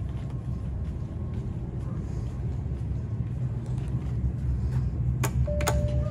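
A steady low rumble from walking and handling. Near the end, two sharp clicks and a short single-pitch beep: the elevator's up hall-call button being pressed and acknowledging the call.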